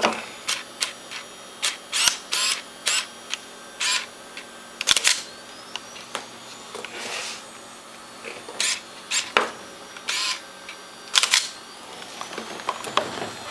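Pentax K100D digital SLR firing its shutter several times, each release a quick doubled clack of mirror and shutter, with smaller clicks of buttons and handling in between. A faint rising whine follows two of the shots.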